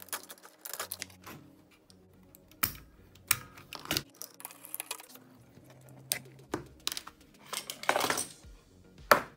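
Metal push-button caps being pulled off a Technics SU-Z15 amplifier's push switches and set down: an irregular series of sharp clicks and small metallic knocks. A longer rattle comes about eight seconds in, and a single sharp click near the end is the loudest.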